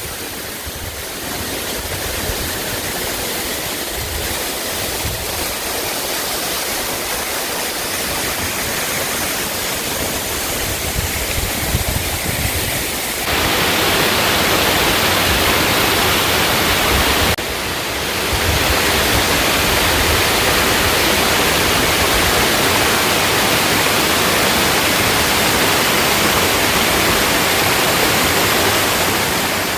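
Amida-ga-taki waterfall: a steady, loud rush of falling water. It jumps louder about 13 seconds in and shifts again at about 17 seconds, as between takes from different spots.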